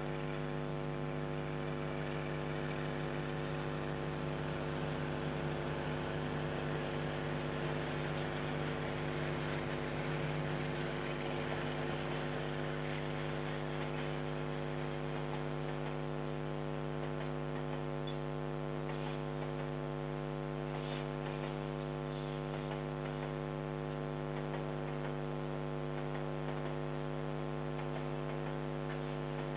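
Steady electrical hum with many overtones, the kind of interference picked up by a security camera's audio, over a faint hiss that is a little stronger in the first half.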